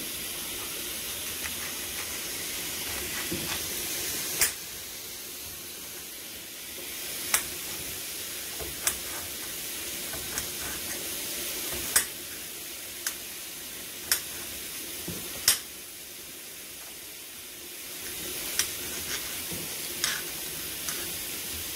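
Steady sizzle of food frying in a pan, with the sharp tap of a knife hitting a plastic cutting board every one to three seconds as an onion is diced.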